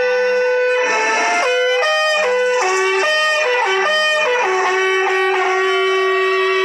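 Sad instrumental background music: a flute playing a slow melody of held notes, the last one held long, over plucked guitar.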